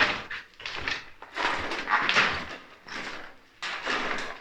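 A sharp knock at the start, then four rough scraping, rustling noises about a second apart.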